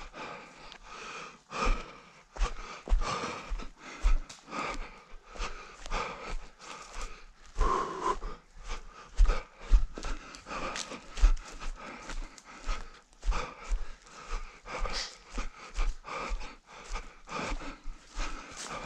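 An orienteer running through terrain: a steady run of footfalls, roughly one to two a second, with heavy panting breaths.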